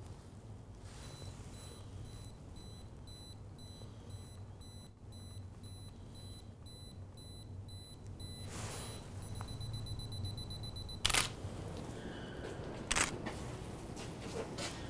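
A digital SLR camera's self-timer counts down on a tripod, beeping steadily at about two to three beeps a second, then faster for the last second or so. The shutter then fires with a sharp click, and a second shutter click comes about two seconds later, at the end of a long exposure.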